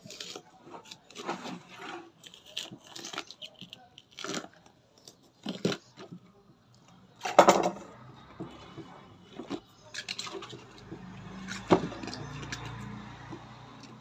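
Raw cabbage being cut around its core with a knife and its leaves snapped and peeled off the head: irregular crisp crunches and cracks, the loudest about seven and a half seconds in.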